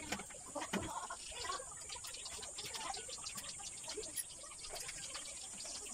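Scattered short calls of chickens clucking, with small clicks and a steady high hiss.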